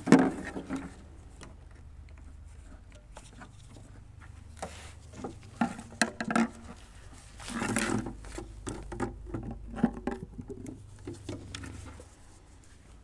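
Jumper-cable clamps and leads being handled and clipped on, making scattered clicks, rattles and knocks of metal clamps and cable. A faint low hum in the background stops near the end.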